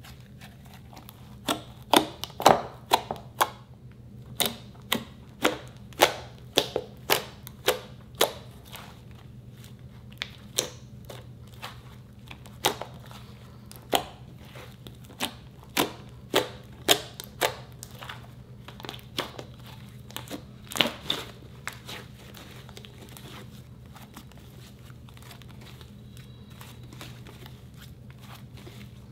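Foamy green slime made with instant snow being squeezed and stretched by hand, giving a run of sharp clicks and pops about one or two a second, over a low steady hum. The pops thin out after about twenty seconds.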